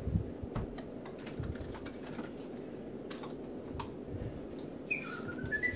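Scattered light clicks and taps, as of small objects being handled, over a steady room hum. Near the end, a person whistles a short run of notes stepping upward in pitch.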